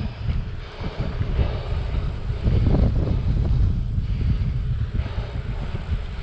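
Wind buffeting the microphone of a camera riding along on a moving bicycle: a gusting low rumble that swells and eases.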